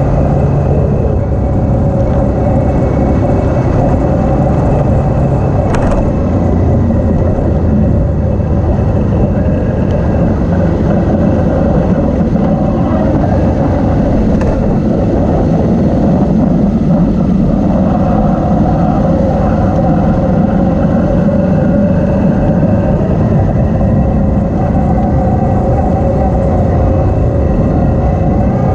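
Motorcycle engine running steadily while riding a dirt track, heard from the bike's own mounted camera together with wind and tyre noise. The engine note shifts a few times as the throttle changes, and there is one sharp tick about six seconds in.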